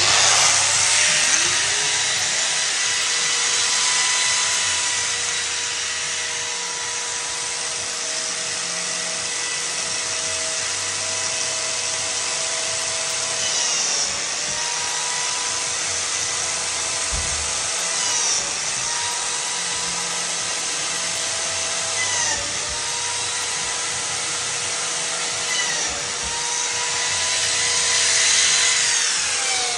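Electric power tool motor starting up and climbing to full speed as a steady high whine with a hiss. It dips briefly in pitch every few seconds as it takes load, then winds down at the end.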